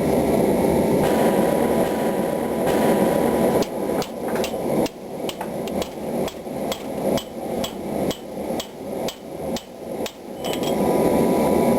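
Forging hammer striking hot steel on an anvil in a regular run of blows, about two to three a second. The hammering comes in the middle, with a steady rushing noise before and after it.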